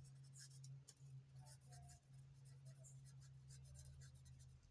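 Faint scratching of a pen writing on notebook paper, in short irregular strokes, over a low steady hum.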